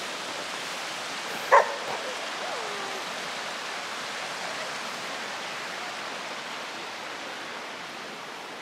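Steady rushing hiss of hot spring water running and trickling over rocks, easing slightly toward the end. About a second and a half in, one short, sharp cry cuts through it, the loudest sound here.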